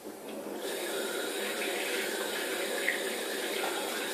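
Sink tap turned on about half a second in, water running steadily into the sink to wash sticky homemade slime down the drain.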